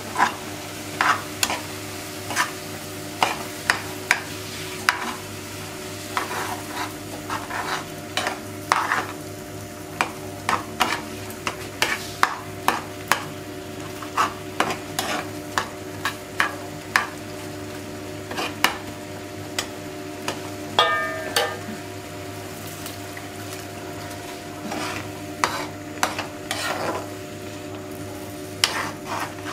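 A metal ladle stirs and scrapes a thick sauce in a frying pan, with irregular clicks and knocks of metal on the pan over the sauce's simmering sizzle and a steady low hum. There is one brief squeak about two-thirds of the way through.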